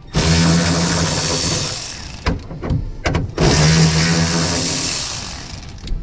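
Cordless electric ratchet running in two long bursts of about two seconds each, backing out the bolt of a seat-belt anchor in a car's roof, with a few short clicks in the pause between.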